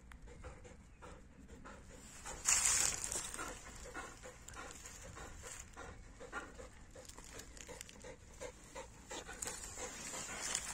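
Galgos (Spanish greyhounds) panting in a steady rhythm, out of breath after running. There is a brief rush of noise about two and a half seconds in.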